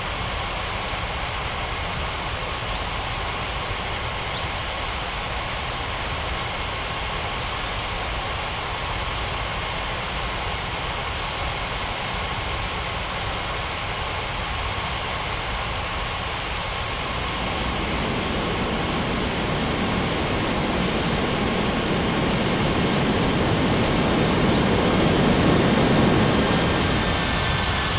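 Airbus A330 jet airliner's engines running with a steady rush of noise. It grows louder from about two-thirds of the way through and peaks near the end, where a faint whine that shifts in pitch comes in.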